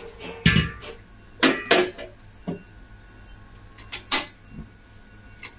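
Metal cookware being knocked and set down on a gas stove, several separate clanks and thuds. About four seconds in come a pair of sharp clicks as the burner knob is turned to light the gas.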